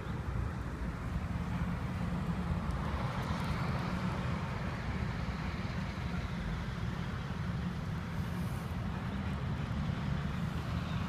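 Steady low rumble of city traffic, with no distinct separate sounds.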